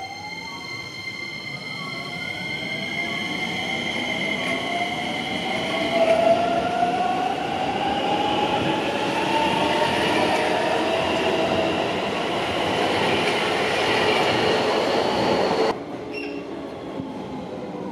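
Electric commuter train pulling out of the station: the traction motors' whine rises steadily in pitch as it accelerates, over growing wheel and rail noise. About 16 s in the sound cuts abruptly to quieter platform ambience.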